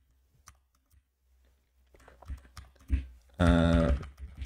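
Computer keyboard keystrokes: a couple of faint clicks, then a run of key presses from about halfway through. Near the end a short hummed 'mm' from a voice is the loudest sound.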